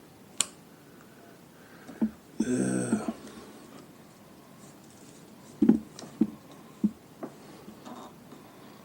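Scattered clicks and knocks from hands working the motorcycle's switches and controls, with a brief pitched sound about two and a half seconds in.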